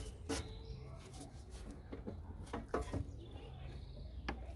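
Plastic cold-air-intake housing being pushed and seated into the engine bay: irregular clicks and knocks of plastic parts, with a few brief squeaks of plastic or rubber rubbing.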